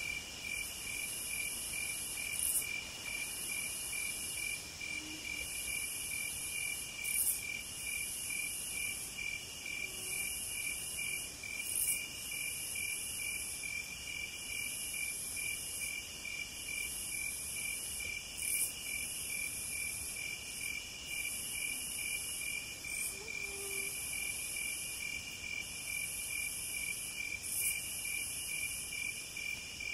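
A chorus of crickets and other singing insects. One cricket chirps in a fast, perfectly even pulse, over a continuous high-pitched insect song that breaks off for a moment every couple of seconds.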